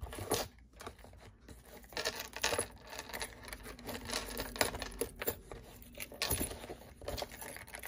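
Leather wallets and a round zip coin purse handled and shifted about in a felt-lined drawer: scattered light knocks, scrapes and rubbing, with small metallic clinks from a gold chain.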